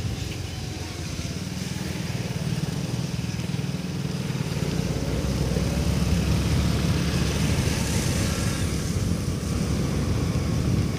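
Honda Activa 4G scooter's single-cylinder engine running under way, with road noise from the ride, growing louder about halfway through.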